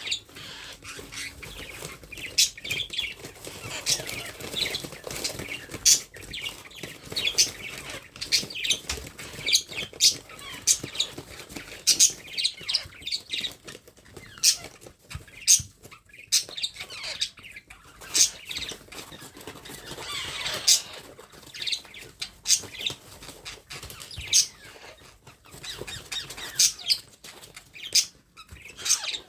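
Baby parrot chicks squawking: short, sharp, high-pitched calls repeated irregularly, one to three a second, typical of chicks begging for food.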